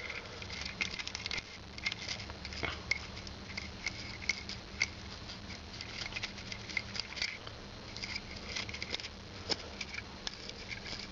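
Stiff synthetic brush wet with petrol scrubbing the metal insert of a Zippo lighter around its flint wheel: a steady run of small, irregular scratches and light ticks of bristles on metal.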